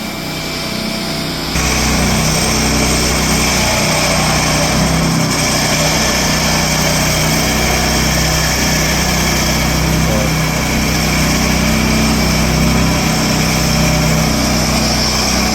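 Small petrol engine of a Husqvarna Soff-Cut 150 walk-behind concrete saw running steadily while cutting control joints in fresh concrete. It gets louder about a second and a half in.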